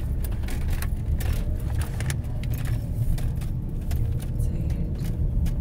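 Car driving along a rough, patched country road, heard from inside the cabin: a steady low rumble of tyres and engine with frequent small clicks and rattles.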